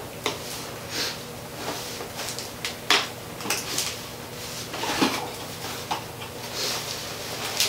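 A cardboard motherboard box being opened and handled, with its plastic packaging inside: a string of scattered rustles, scrapes and light knocks.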